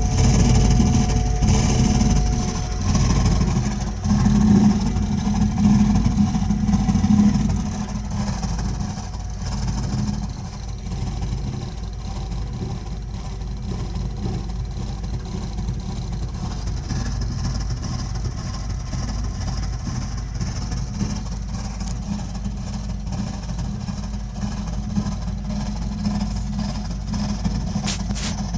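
Burnham Alpine gas condensing boiler making a loud, low rumbling noise, louder and more uneven for the first several seconds, then settling into a steadier rumble. The noise is the boiler's recurring fault.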